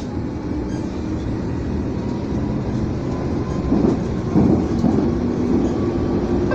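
Berlin U9 U-Bahn train running between stations, heard from inside the car: a steady rumble of wheels on the rails with a motor hum, growing louder about four seconds in.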